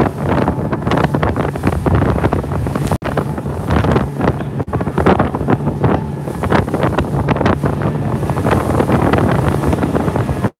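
Wind buffeting the microphone aboard a fast rigid inflatable boat pounding through choppy water, over the steady drone of its motor, with water splashing and slapping against the hull.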